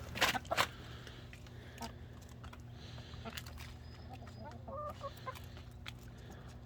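Chickens clucking in short pitched calls, with a few sharp knocks about half a second in, over a steady low hum.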